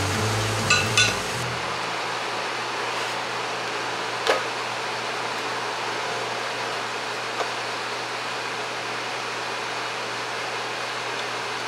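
Steady hum and hiss of a maple sugarhouse with the sap pump and evaporators running, broken by one sharp knock about four seconds in. Background music ends in the first two seconds.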